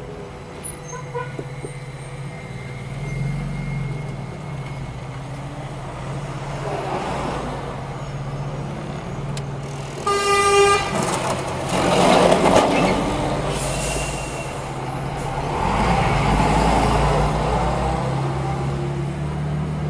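Car engine and road noise heard from inside a moving car, with a single short horn toot about ten seconds in and louder swells of passing traffic after it.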